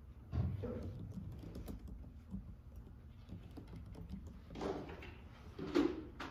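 Quiet typing on a computer keyboard, a run of soft key clicks, with a couple of louder, fuller noises near the end.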